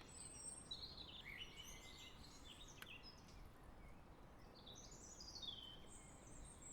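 Faint songbird song: a run of short chirping and warbling phrases, with a brief pause in the middle, over a quiet steady background hiss.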